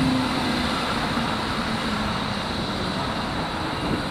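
Berlin S-Bahn electric train pulling away along the platform, a humming tone falling in pitch and fading over its running noise on the rails as it recedes.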